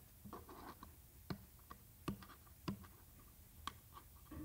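Fingers prying at a small, sturdy trading-card box that is hard to open: faint scratching and light clicks, with about five sharper clicks spread through.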